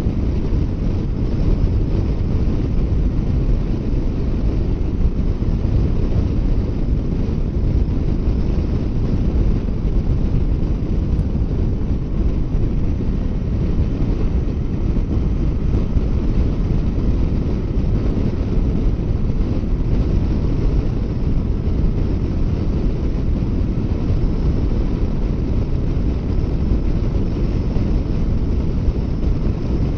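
Steady wind noise buffeting the microphone of a motorcycle rider at road speed, with a low rumble underneath from the bike and road.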